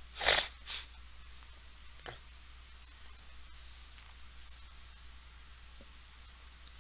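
Faint computer keyboard and mouse clicks, scattered and irregular, as a router configuration command is typed. Just at the start there is a short, loud breath-like hiss, with a smaller one right after it.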